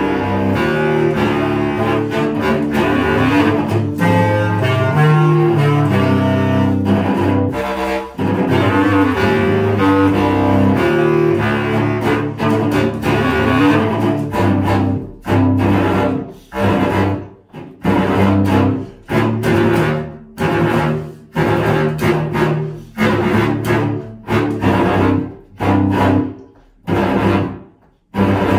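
Bass clarinet and cello duo playing a metal piece: dense sustained low notes for the first half, then short, separate stabbed notes about one a second with brief gaps between them.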